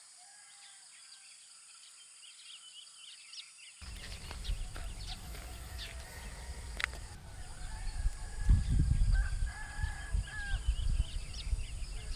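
Rooster crowing, with small birds chirping and wind buffeting the microphone. The sound is faint at first, then gets louder after a cut about four seconds in.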